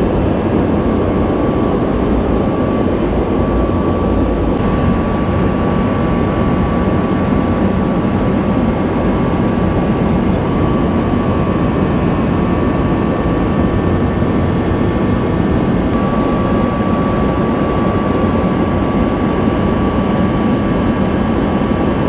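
Steady cabin noise inside an E-3A AWACS jet: an even engine and airflow noise, strongest in the low end, with a thin steady whine running through it.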